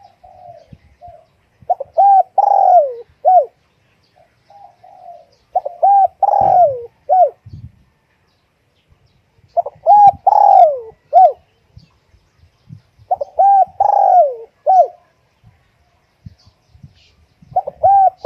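Spotted dove cooing: phrases of a few coos, the longest falling in pitch at its end, repeated about every four seconds with softer short notes between. This is the insistent cooing (thúc gù) that keepers play to rouse decoy doves.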